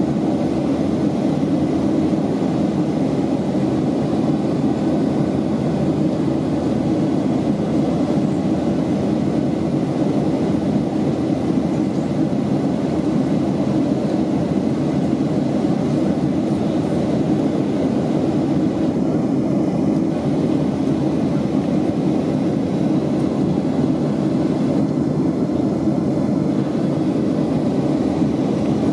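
Steady cabin noise inside a Boeing 757-28A in flight: the Rolls-Royce RB211 engines and the airflow over the fuselage, heard as an even, deep rush that does not change.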